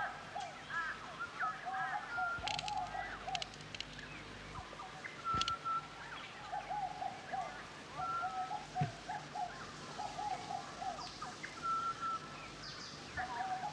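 Birds calling in the background: a busy chatter of short, repeated calls with some held whistles, and a few sharp clicks in the first half.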